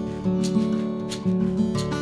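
Background music: acoustic guitar strumming, its chords ringing on between strokes.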